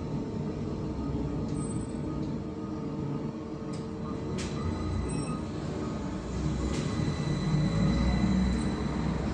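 Cabin of a VMZ-5298.01 trolleybus on the move: a steady low rumble from the electric drive and the road, with a thin steady high whine and a few light clicks and rattles. The rumble grows louder about two-thirds of the way through.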